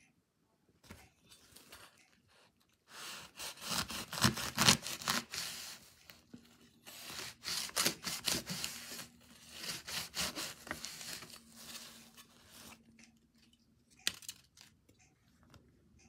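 Large kitchen knife cutting through the stalk end of a freshly cooked ear of corn in its husk: crunching and tearing of husk and cob in two stretches of a few seconds each, starting about three seconds in, with a sharp click near the end.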